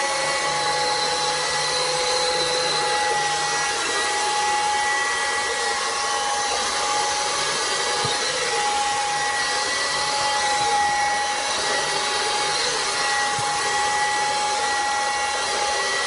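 Steady whirring of a small electric motor: an even hiss with a few constant whining tones over it.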